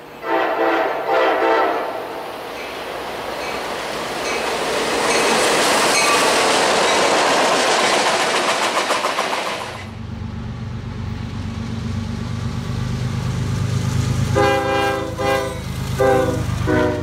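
CSX freight train horn sounding two blasts, then the train passing with a steady rush of wheels on rail. After a sudden cut, CSX wide-cab diesel locomotives rumble low as they pass, and the horn sounds several more blasts near the end.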